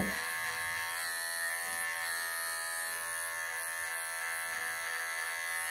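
Wahl cordless pet clippers running with a steady buzz as they shave matted fur from a cat's back.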